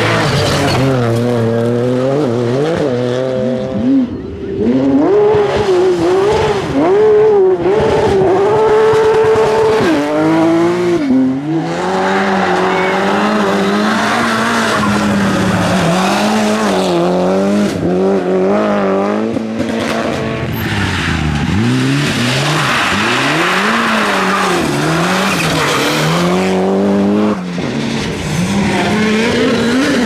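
Rally cars at full speed on special stages, one after another: engines revving hard and falling back through gear changes and lifts. Tyre and gravel noise rises in places, and the sound changes abruptly several times as one car gives way to the next.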